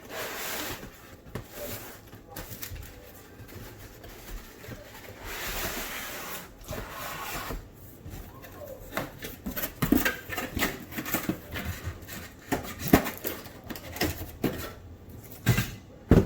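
Cardboard box and packaging being opened and handled: rustling, sliding scrapes, then a string of light knocks and taps.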